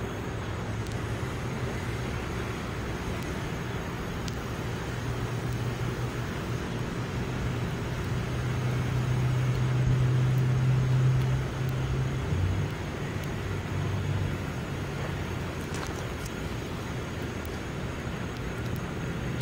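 Low, steady engine hum that grows louder about eight seconds in, peaks, then drops back about twelve seconds in.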